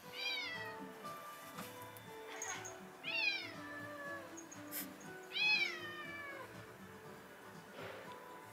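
A cat meowing three times, a few seconds apart, each meow rising and then falling in pitch, with background music playing.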